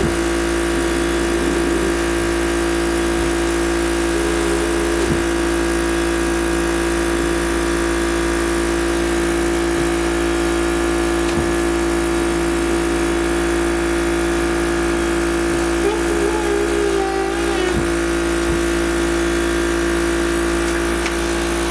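Blower motor of a CoughAssist mechanical insufflation-exsufflation machine running with a steady, even hum.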